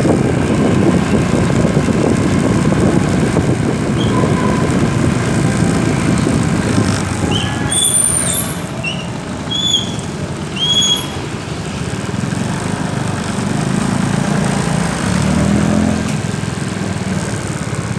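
Small motorcycle engine running under heavy wind rumble on the microphone while riding. Partway through it slows, with a few short high squeaks. Near the end the engine settles lower and steadier.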